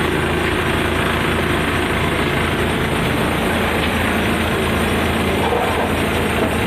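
Bus engine running steadily with an even low hum, heard from inside the driver's cab.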